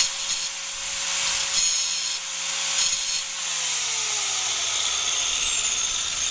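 Angle grinder running at speed, making three short grinding passes on a stuck wheel-bearing inner race on the axle spindle. About three and a half seconds in it is switched off and its whine falls away as it spins down.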